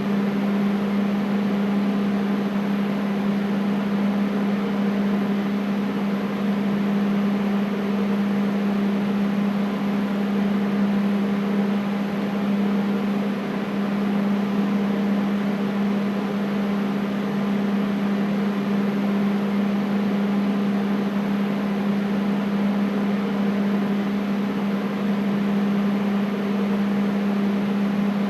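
Air conditioner running steadily: a constant low hum with an even airy hiss over it, unchanging throughout.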